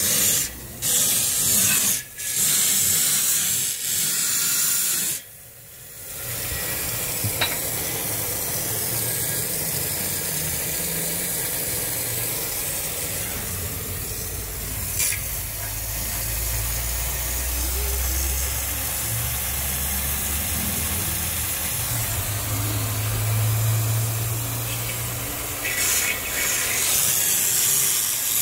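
Compressed air and water blasting out of a dental air compressor's tank drain as the tank is purged of condensate. A loud hiss cuts off and restarts several times in the first few seconds, then runs on steadier and quieter with a low hum underneath, and grows loud again near the end.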